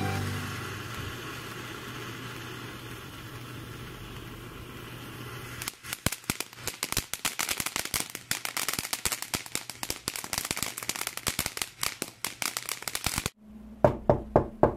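Small ground firework hissing as it sprays sparks, then, about six seconds in, going off in a fast crackle of many sharp pops that lasts about seven seconds and stops abruptly. A few separate sharp knocks follow near the end.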